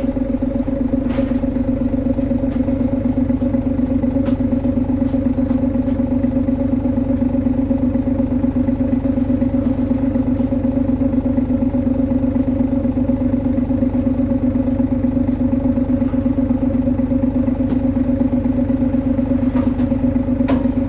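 Hino Blue Ribbon HU2ML bus engine running at a steady speed, a loud constant drone with a strong unwavering hum. This is the unusual engine noise of this low-floor prototype, which the uploader puts down to its rearranged engine layout.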